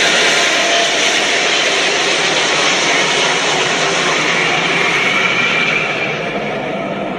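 King Ghidorah monster sound effect: a loud, long rushing noise like a jet engine, with a faint high whine in it, easing off a little over the last second or two.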